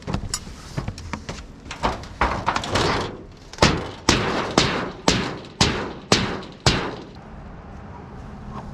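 Old sheet-metal roofing panels being pried up and torn off: crackling and clicking of metal at first, then about seven sharp bangs on the metal sheeting, roughly two a second, each ringing briefly.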